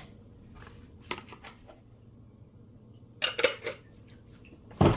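A few short, light clicks and taps of kitchen utensils in two small clusters, about a second in and again just past three seconds, with quiet room tone between.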